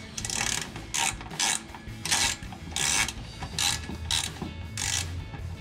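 Hand socket ratchet clicking in repeated short strokes, about one and a half a second, as a mounting-bracket bolt is run in by hand.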